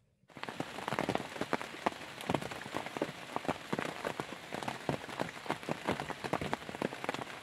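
Steady rain falling on a lake, with many distinct drops striking close by; it starts abruptly about a third of a second in.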